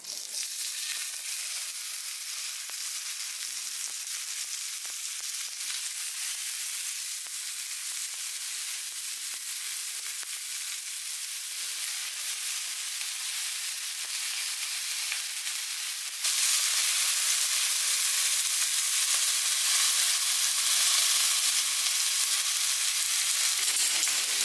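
New York strip steaks sizzling as they are laid one by one into a hot, lightly oiled cast iron skillet over medium-high heat: a steady frying hiss that starts as the first steak goes in and turns suddenly louder about two-thirds of the way through.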